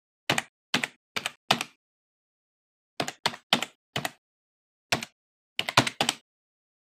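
Computer keyboard typing sound effect: about a dozen single key clicks in uneven groups, four, a pause, four more, one, then a quick few near the end, each click keyed to a letter of the word being typed on screen.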